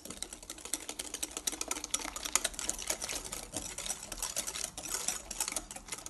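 Wire balloon whisk beating a creamy batter by hand in a glass bowl, its metal wires clicking rapidly and steadily against the glass.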